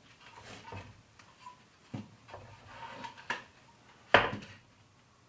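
Wooden boards handled on a workbench: soft scraping and light knocks, with one sharp wooden knock about four seconds in as a side board is set against the box base.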